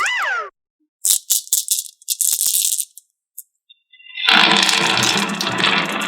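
Marbles rattling and clattering down a wooden marble run: scattered clicks and short rattles, then from about four seconds in a dense, continuous clatter. A short rising-then-falling tone sounds at the very start.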